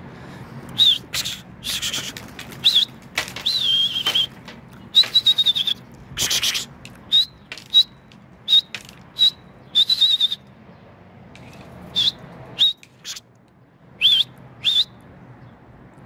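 Sharp, high whistles, repeated in short quick runs with a pause near the end, driving young domestic pigeons off their perch into flight; wing flaps are mixed in.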